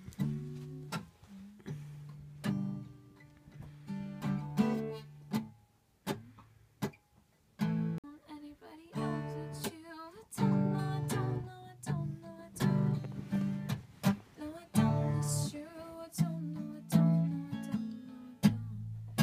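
Acoustic guitar strummed in chords, with a young woman singing along; the strumming pauses briefly a few times between phrases.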